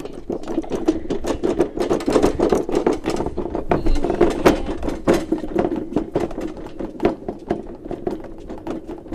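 A wooden bench with a person on it being pushed along paving stones: a continuous rattling rumble with many sharp clicks and knocks as it jolts over the joints.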